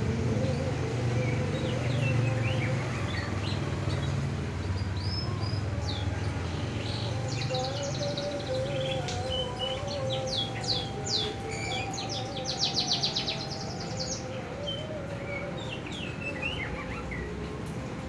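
Songbirds chirping and whistling in short, varied phrases, with a fast trill about two-thirds of the way through, over a steady low hum.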